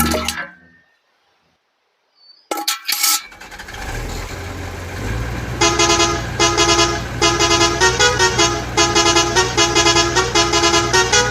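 A vehicle horn honking in a run of short blasts, about two a second, that starts about five and a half seconds in, over a steady low engine rumble. Before that, a brief silence and a few clicks.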